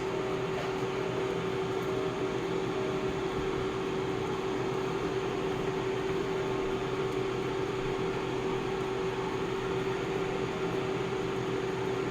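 Steady whirring hum of an electric appliance's fan motor running, one constant tone over an even rushing noise, unchanging throughout.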